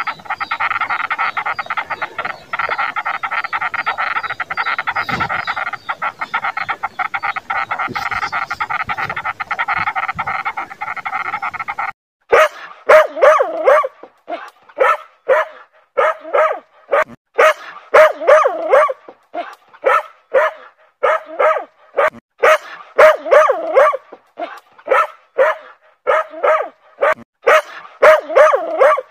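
A steady buzz made of rapid pulses with several fixed tones, then about twelve seconds in a small terrier starts barking, sharp repeated barks about two a second, which are the loudest sounds.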